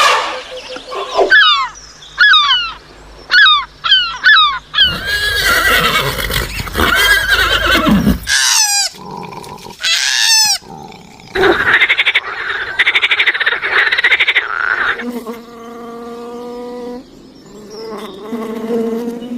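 A run of different animal calls edited one after another: repeated quick falling chirps, a noisy stretch, a fast pulsing rattling call lasting a few seconds, then a steady pitched call near the end.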